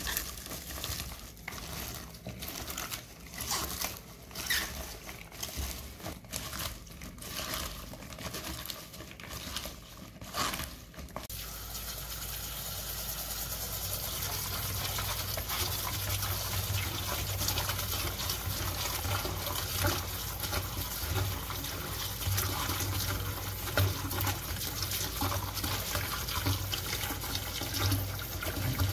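Hands scrunching and rubbing salted water spinach stems in a plastic bowl, an irregular run of rustling, crackling strokes. About eleven seconds in, a tap starts running steadily into the bowl as the stems are rinsed, a louder continuous splashing that fills the bowl.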